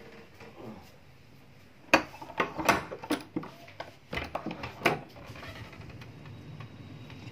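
A sharp knock about two seconds in, then a quick run of clacks and rattles for about three seconds, then a steady faint hiss.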